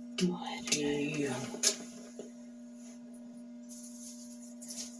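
Steady electrical hum, with a few sharp clicks and a brief low murmur in the first two seconds, then mostly the hum alone with faint ticks near the end.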